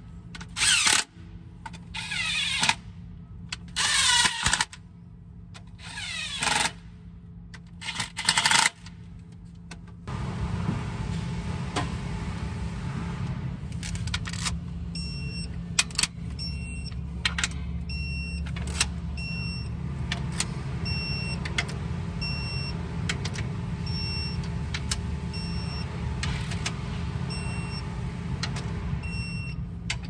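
Short bursts of fast ratchet clicking over the first ten seconds as rocker-arm bolts are run down. Then a steady low shop drone starts, and a digital torque wrench beeps about once a second, with occasional clicks, while bolts are tightened.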